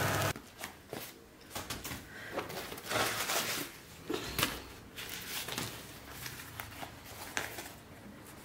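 A brief frying sizzle cuts off just after the start, followed by grey fabric storage boxes being unfolded and handled: irregular rustling of stiff fabric and board panels with scattered light taps.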